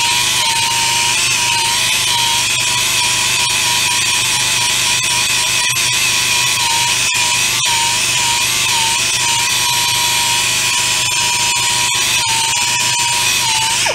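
Narrow belt sander running steadily as it grinds the inside of a Volkswagen Waterboxer engine case, clearancing it for a longer-stroke crankshaft. It makes a continuous whine whose pitch wavers slightly as the tool is worked against the metal.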